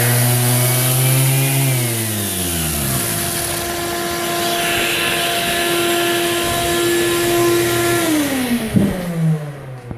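Ridgid R2611 6-inch random orbital palm sander running on a hardwood floor, with a shop vac drawing dust through it. The motor pitch drops twice, at about a second and a half in and again near the end, and the sound winds down just before the end.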